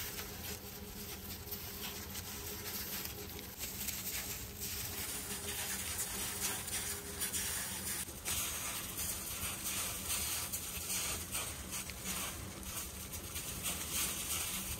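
Steady hiss of wind and blowing snow in a snowstorm, with fine crackling throughout.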